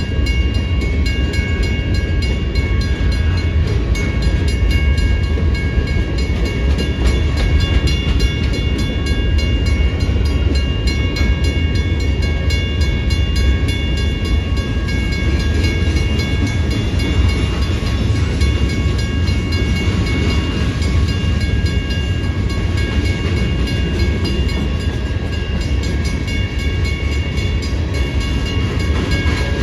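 Freight train cars rolling through a grade crossing with a steady low rumble, while the crossing's electronic bells ring on top in a fast, even rhythm.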